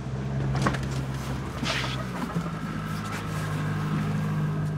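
Boat engine running steadily with a low hum, its pitch shifting about two seconds in as the throttle changes, while a hooked steelhead is played from the boat. Two short rushes of noise come in the first two seconds.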